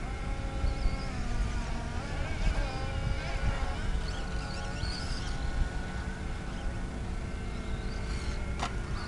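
Radio-controlled off-road buggies running on a dirt track, their motors making a high buzz that rises and falls in pitch as they speed up and slow through the turns, several at once. A sharp click near the end.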